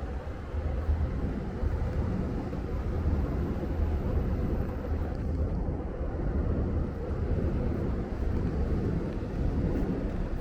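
Steady city street ambience: a continuous low traffic rumble under an even wash of noise, with no distinct events.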